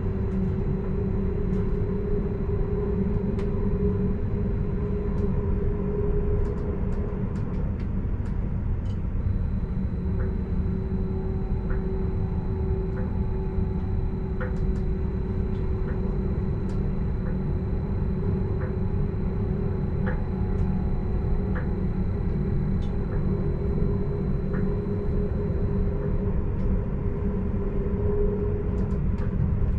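Stadler RABe 515 'Mutz' electric multiple unit running along the line, heard from inside the driver's cab: a steady rumble of wheels on rail with a steady whine from the drive that drops out for a few seconds near the start, and scattered light ticks.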